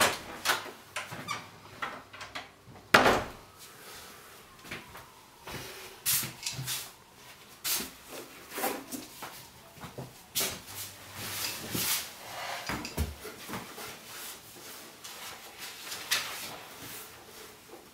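Handling sounds in a small room: scattered clicks, knocks and rustles of things being moved about on a wooden desk, with one loud thud about three seconds in.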